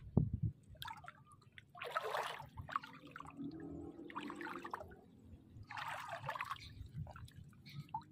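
Water splashing and trickling in three short bursts, with a dull thump just before the first.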